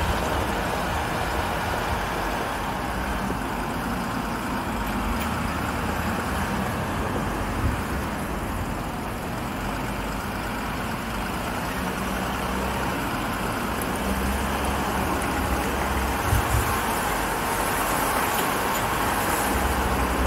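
Engine of an armoured military off-road vehicle running at low speed, with a steady rushing noise and a low uneven rumble as it drives over rough gravel ground.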